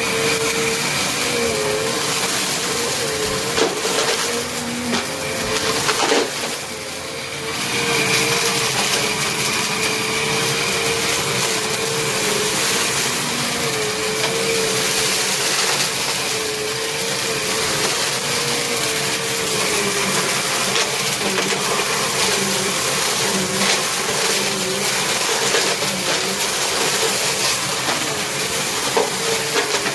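Small Bissell vacuum cleaner running continuously with a wavering motor whine, picking up crunchy dry debris with scattered crackles. The sound drops briefly about six seconds in, then comes back.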